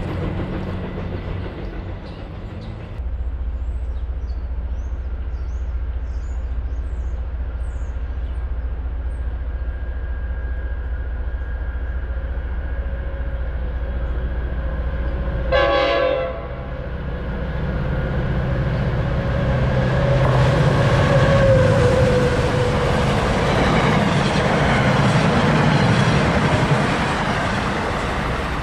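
Train horn sounding one short blast a little past halfway, then the noise of a train passing grows louder and stays loud to the end, with wheel clatter on the rails.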